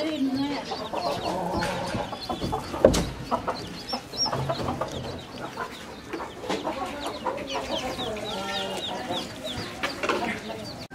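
A hen clucking while her chicks peep with many short, high, falling cheeps. A single sharp knock about three seconds in.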